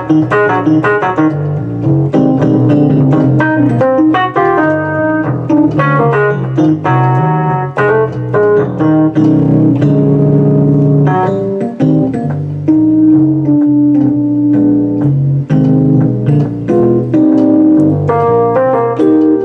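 Digital piano keyboard played with both hands: a melody moving over held chords, played loud with no breaks.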